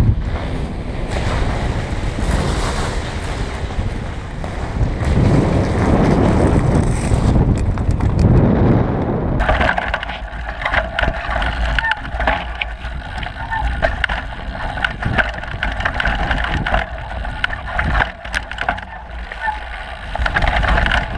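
Mountain bike descending a dirt trail, recorded by a camera on the rider: heavy wind buffeting and tyre rumble at first. About nine seconds in, the sound cuts to a lighter rolling over dirt and gravel, with frequent sharp rattles and clicks from the bike.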